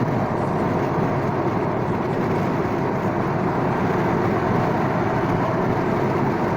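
Steady road noise from a moving car, heard from inside the cabin: an even rush of tyres and engine with no change.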